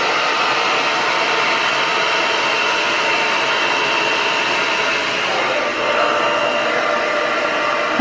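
Irresistible Me Black Diamond Professional hair dryer running steadily on a round-brush blow-dry: an even rush of air with a faint high whine.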